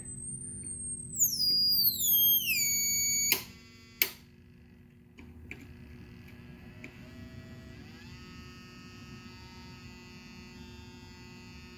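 Whine from a tube amplifier driving a microwave-oven transformer, following the swept drive frequency: a high tone steps down from about 8 kHz to about 2 kHz, then two sharp clicks, then a fainter, lower tone that steps upward. A steady mains hum runs underneath.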